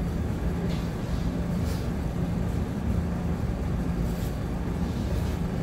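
Steady low background hum of a restaurant room, with a few faint soft clicks.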